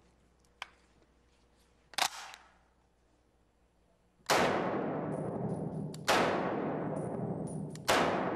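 Browning semi-automatic .30-06 hunting rifle fired three times, about two seconds apart, each report echoing through an indoor range. A single sharp knock comes about two seconds in, before the first shot.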